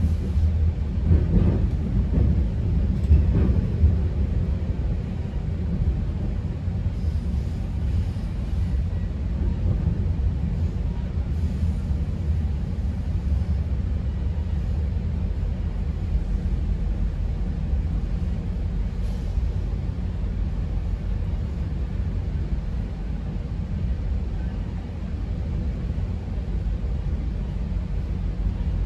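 Steady low rumble of a GO Transit commuter train running along the track, heard from inside a passenger coach, with a few louder knocks in the first few seconds.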